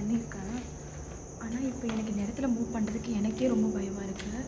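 Crickets chirping in a steady high trill. Over it runs a louder low drone that keeps wavering up and down in pitch.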